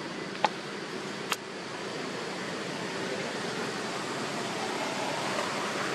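Steady background noise, with two sharp clicks about a second apart near the start.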